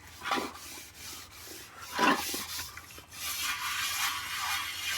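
A cooking pot being scrubbed clean by hand, a rough rubbing and scraping with two louder scrapes about a third of a second and two seconds in, followed by a steadier hiss.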